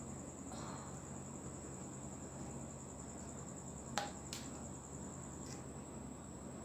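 Metal clicks from a tool worked down inside a motorcycle front fork tube: one sharp click about four seconds in, with fainter taps around it. Under them runs a steady high-pitched trill.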